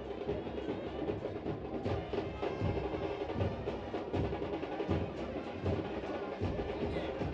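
Music with a steady, prominent drum beat.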